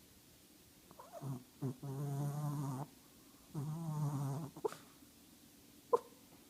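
Small Shih Tzu snoring in its sleep: two drawn-out, rattling snores of about a second each, with a few short snuffles before them and brief clicks after.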